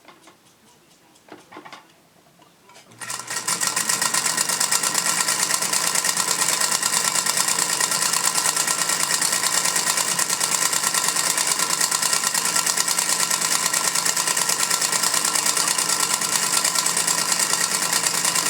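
Singer Featherweight 221 sewing machine, freshly cleaned and oiled, starting about three seconds in after a few faint ticks, then running steadily at speed with a fast, even clunking from the bobbin area that the owner finds loud.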